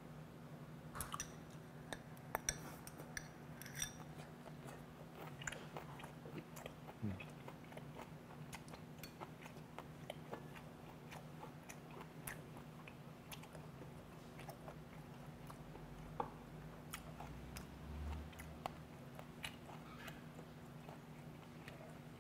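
A person chewing and biting food close to a clip-on microphone, with scattered small clicks from chopsticks and dishes over a steady low hum.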